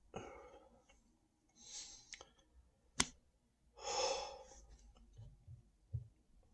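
A person breathing out heavily and sighing, twice at length, with one sharp click about three seconds in and a few soft low thumps near the end.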